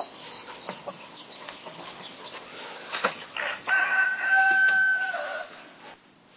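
A rooster crowing once: a long, held cock-a-doodle-doo starting about three seconds in and lasting about two seconds. Before it, scattered short clicks and calls over a farmyard background.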